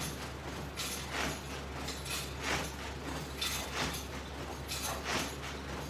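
Rhythmic swishing and rubbing from someone doing repeated crunches with resistance bands, a short stroke roughly once a second and often in pairs, over a steady low hum.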